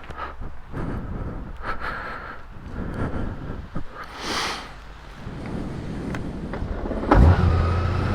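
Knocks and rustling, then about seven seconds in a motorcycle engine starts with a loud burst and settles into a steady idle.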